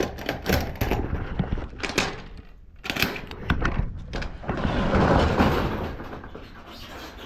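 Objects being handled and shifted about: a run of knocks and clicks, then a longer rustling scrape that swells and fades about four to six seconds in.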